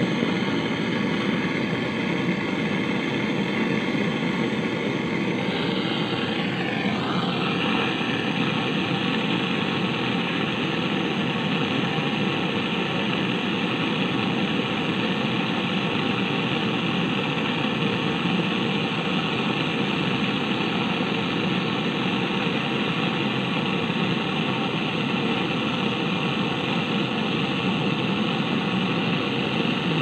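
Gas brazing torch flame burning steadily against the copper pipe joints of a refrigerator compressor, a constant rushing noise; about six seconds in its sound shifts briefly as the flame is moved or adjusted.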